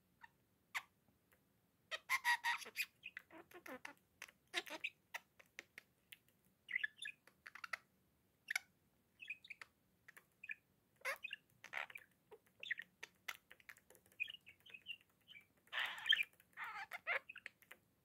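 Budgerigar chattering: a scattered run of short chirps, warbles and clicks with quiet gaps between, louder bursts about two seconds in and again near the end.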